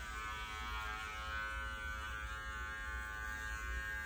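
Electric dog grooming clippers fitted with a #15 blade running steadily while shaving a puppy's lower jaw and throat against the grain: an even buzz that holds one pitch.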